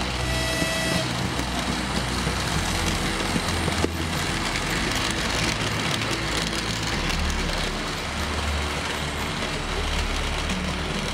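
Model passenger train running on its track: a steady rolling rumble and rattle of the wheels and motor. A brief high tone sounds about half a second in.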